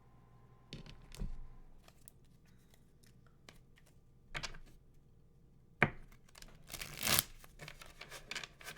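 Tarot cards being handled: soft rustles and clicks, a sharper snap about six seconds in and a brief swishing rustle just after.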